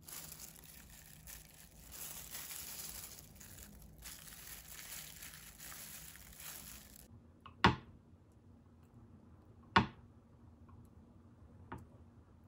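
Disposable plastic gloves crinkling as rice balls are handled, for about seven seconds. Then a knife cutting through a block of tofu knocks on a wooden cutting board three times, about two seconds apart.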